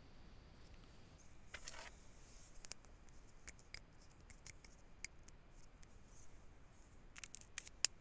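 Faint handling noises from a pen and a spiral sketchbook: a brief rustle about one and a half seconds in, then scattered light clicks and ticks, the sharpest near the end.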